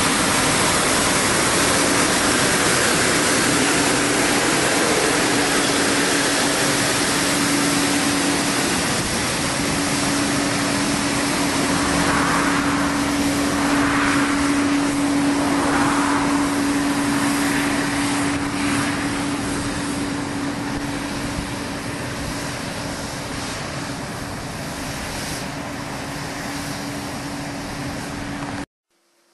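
Johnston VT800 truck-mounted road sweeper running and sweeping: a loud, steady rush of machinery noise with a constant hum. It eases off somewhat in the second half as the sweeper moves away, then cuts off suddenly near the end.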